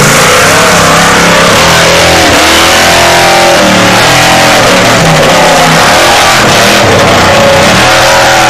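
Formula Offroad buggy's engine revving hard under full load as it climbs a steep dirt hill. The pitch sweeps up at the start, then rises and falls repeatedly as the throttle works, very loud throughout.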